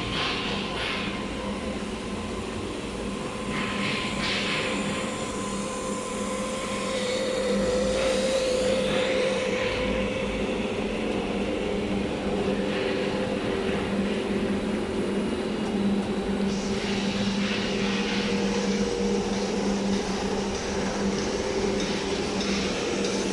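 PVC hose extrusion line running: a steady machine hum from its motors, with a few short bursts of hiss.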